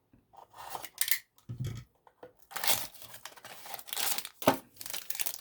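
Trading card packaging being torn open and crinkled by hand, with scattered rustles at first and then a longer, busier stretch of tearing and crinkling.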